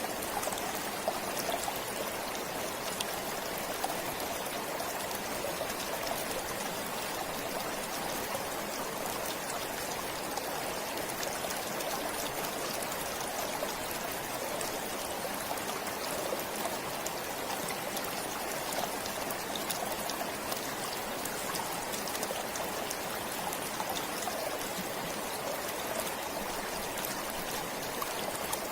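Forest stream flowing steadily: a constant rush of running water with fine splashing and trickling.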